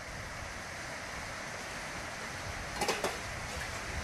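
Heavy rain pouring steadily onto flooded ground, with a brief cluster of sharp knocks about three seconds in.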